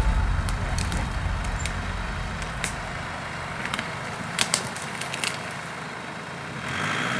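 Nissan 4x4 crawling down a rough, overgrown trail in low range. A low engine rumble fades over the first few seconds, with scattered sharp cracks and snaps of twigs and stones under the tyres.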